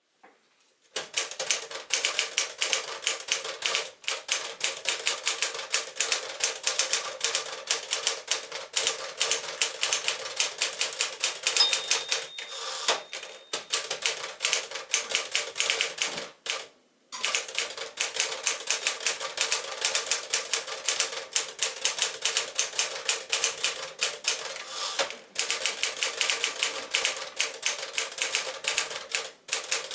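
1963 Smith-Corona Sterling (5AX) manual portable typewriter being typed on at a fast, even pace, a rapid clatter of keystrokes with a few short pauses. A single bell-like ring sounds about halfway through, like the end-of-line margin bell.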